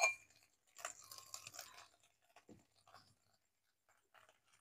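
A light metallic clink, then faint scraping and rustling as crushed ginger is tipped and scraped from an aluminium cup into a steel kadai, followed by a few small taps of utensils and jars being handled.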